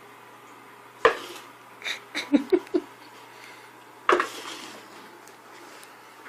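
Hard objects clattering: a sharp knock about a second in, a quick run of clinks and knocks a second later, and another sharp knock about four seconds in.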